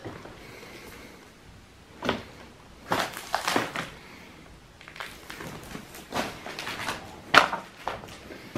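Scattered knocks, clunks and rustles from a pile of rubbish and plastic sheeting being disturbed, in short irregular bursts a few seconds apart.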